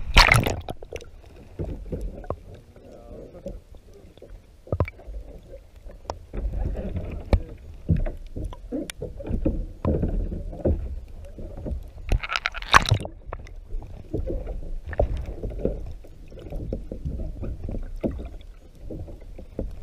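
Muffled underwater sound from an action camera held just below the surface: a splash as it goes under, then a low sloshing rumble full of scattered clicks and crackles, with another louder splashing burst about two-thirds through.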